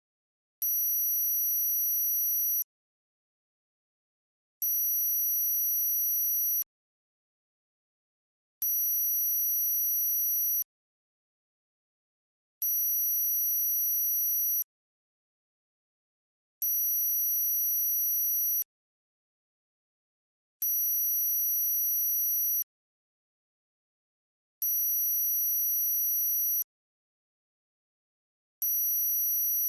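Very high-pitched electronic tone for tinnitus masking. It switches on for about two seconds and off for two, over and over, eight times.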